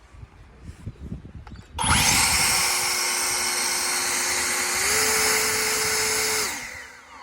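Ego cordless battery leaf blower starts up about two seconds in and runs steadily with a fan whine. It steps up in speed about five seconds in, then is let go and spins down with a falling whine near the end.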